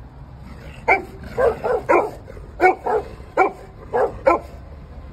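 Samoyed barking: about nine short, sharp barks, some in quick pairs, starting about a second in.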